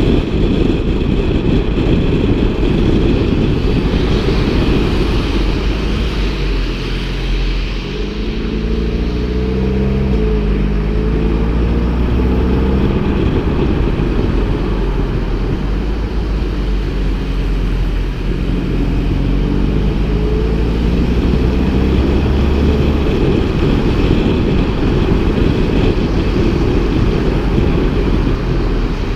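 Seat Altea's aftermarket eTuners exhaust on a running car, with a deep rumble throughout. The engine note climbs twice, about a third of the way in and again past the middle.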